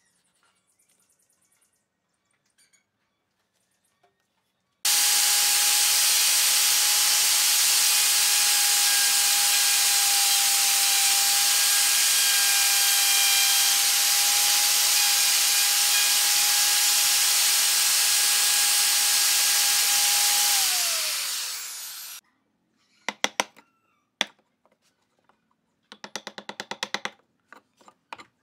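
Handheld plunge router cutting a shallow hinge mortise in pine: a steady high whine over loud cutting noise that starts abruptly about five seconds in, runs for about fifteen seconds, then falls in pitch and dies away as the motor is switched off. A few sharp taps and a short rattling burst follow near the end.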